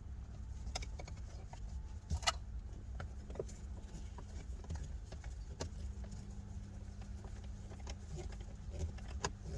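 A few light clicks and taps of plastic steering-column parts being handled and fitted, the sharpest about two seconds in, over a steady low hum.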